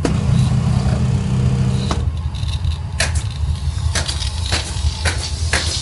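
Diesel-fired steam car-washing machine running with a steady low hum. There is a sharp click at the start and several short, sharp clicks or bursts of noise from about three seconds in.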